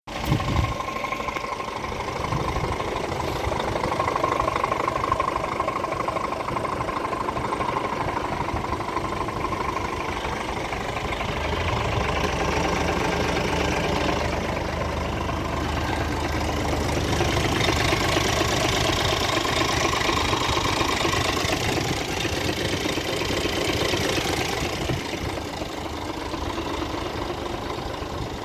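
Scania G490 truck's six-cylinder diesel engine idling steadily, a little louder through the middle stretch.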